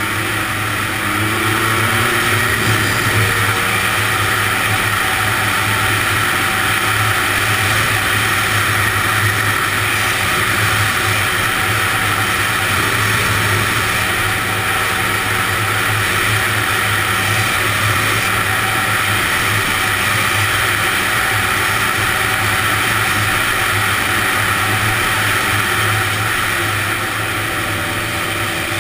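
Honda ATC 250R three-wheeler's two-stroke single-cylinder engine running under way on ice, rising in pitch in the first couple of seconds as it accelerates, then holding a steady speed.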